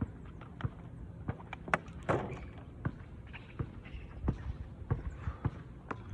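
Irregular light knocks and taps, a dozen or so, with a short rushing sound about two seconds in.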